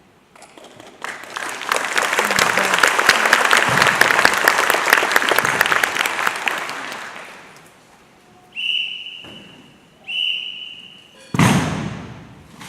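Audience applauding for about six seconds, then fading out. Two short high whistle blasts follow about a second and a half apart, and a loud thump comes near the end.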